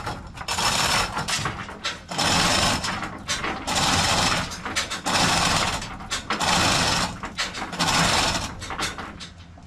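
Manual chain hoist being worked to lift a sawmill head: the hand chain is pulled in strokes, each one a burst of rattling chain and clicking ratchet, about seven in a row roughly one every second and a half, stopping near the end.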